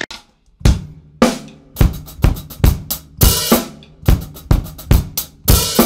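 Drum kit played in a steady groove, starting about half a second in: bass drum and snare hits about two to three a second over hi-hat, with a longer cymbal wash twice.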